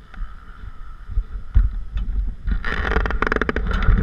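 Wind buffeting on an action camera's microphone, with rubbing and clicking handling noise from about two and a half seconds in as the camera is moved.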